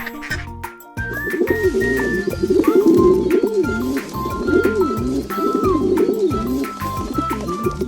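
Pigeons cooing in repeated wavering low calls, starting about a second in, over background music with a steady beat.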